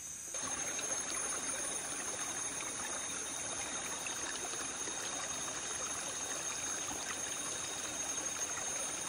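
Shallow rocky stream trickling over stones, a steady flow of running water.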